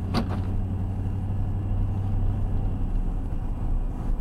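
Car driving, heard from inside the cabin: steady engine and road rumble with a low hum that fades about three seconds in.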